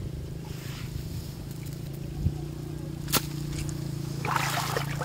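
A small motor running steadily with a low hum, with a sharp knock about three seconds in and a brief scraping rustle near the end.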